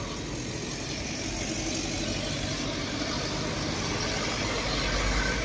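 Road traffic: vehicle engines and tyres running past on the street, the sound slowly growing louder toward the end.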